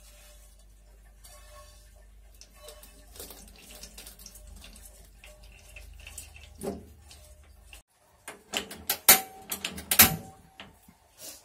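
Hot frying oil and fried garlic poured from a wok through a stainless mesh oil strainer into a stainless oil pot: a liquid pour with light crackling over a low hum. The hum stops abruptly about eight seconds in, followed by a run of sharp metal knocks and clanks, the two loudest near the end with a brief ring.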